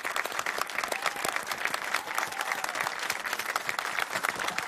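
Studio audience applauding: a dense, steady clatter of many hands clapping.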